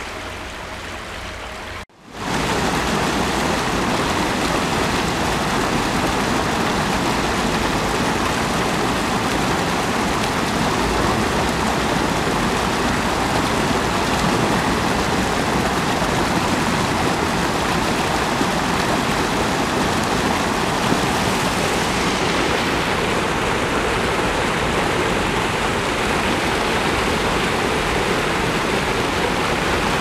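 A shallow stream running over stones, then after a sudden cut about two seconds in, a loud, steady rush of white water pouring over a low weir.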